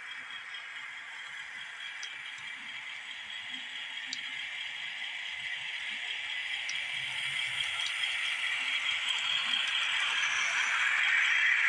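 Model PRR GG1 locomotive and passenger train running on model track, a steady rattling of wheels and running gear that grows steadily louder as the train comes closer, with a few faint clicks.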